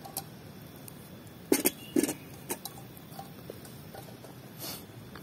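A few sharp knocks: two loud ones about a second and a half and two seconds in, a lighter one just after, then a short rustle near the end.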